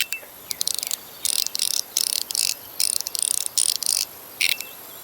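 A fidget toy being worked by hand: short bursts of rapid, high-pitched clicking and rattling, several in a row, each lasting about half a second.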